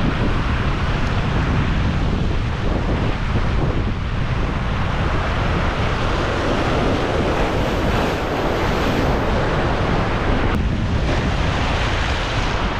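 Ocean surf breaking and washing over a rocky reef shoreline, mixed with wind buffeting the microphone as a steady low rumble.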